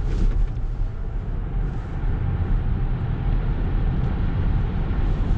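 Ski-Doo Renegade Backcountry 600 E-TEC two-stroke twin snowmobile engine running steadily under way on the trail, mixed with the noise of the track and the wind.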